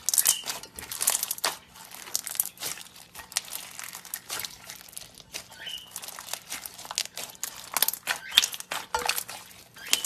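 Clear slime packed with beads being pressed and squeezed by hand: a dense, irregular crackling and clicking as the beads pop and shift, with louder flurries of crackles about a second in and again near the end.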